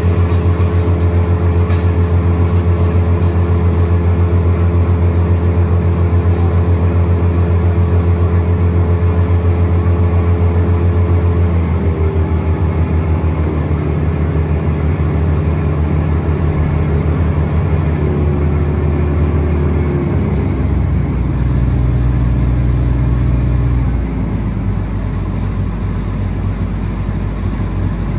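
Wood chipper engine running steadily with no wood being fed. From about halfway through, its pitch drops in a few steps, and it settles lower and a little quieter near the end.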